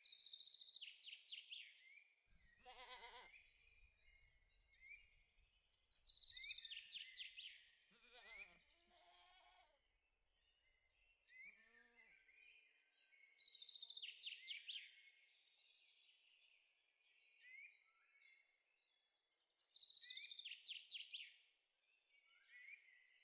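Faint birdsong: the same quick falling high phrase repeats about every six to seven seconds. Lower pitched animal calls come about three, eight and twelve seconds in, over a low rumble that stops about halfway through.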